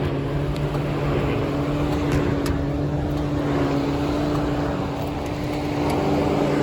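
1999 Lexus RX 300's 3.0-litre V6 idling with its air conditioning running, a steady hum with a few faint clicks. The engine is misfiring on cylinder 6, which the owner puts down to a failing ignition coil.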